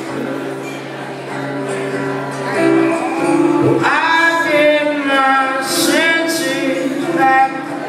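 Live acoustic guitar playing, with a man's singing voice coming in about four seconds in and holding long notes over the strumming.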